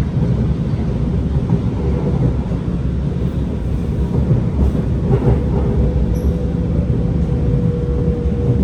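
Alstom R151 metro train running, heard from on board: a steady low rumble with a thin, steady hum from the train's SiC-VVVF traction equipment.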